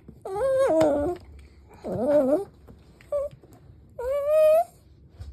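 Toy poodle whining in drawn-out, rising-and-falling cries, four long ones and a short yelp between them, begging for food.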